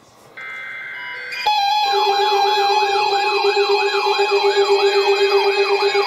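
Several NOAA weather alert radios sounding their alarms at once for an incoming Winter Storm Warning. A steady two-note beep comes on just under half a second in, then at about a second and a half a loud chorus of electronic alarms starts: a fast up-and-down siren wail, almost three sweeps a second, over steady and pulsing tones.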